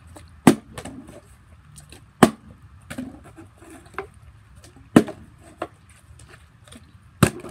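Partly filled plastic water bottles being flipped and landing on a concrete floor: four sharp knocks about two seconds apart, with lighter knocks and clatter between them.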